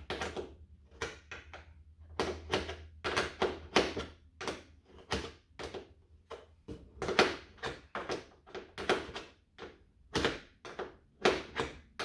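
A hand ratchet with a 10 mm socket clicking in quick, irregular runs as the nut holding a car door's window regulator is turned down by hand.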